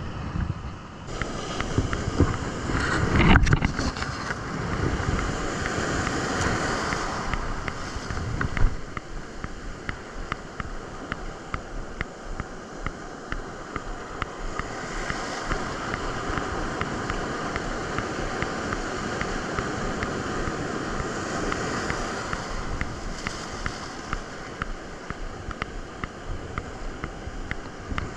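Ocean surf washing onto the beach, with wind buffeting the microphone; the wash swells loudest about three seconds in and again around six to eight seconds.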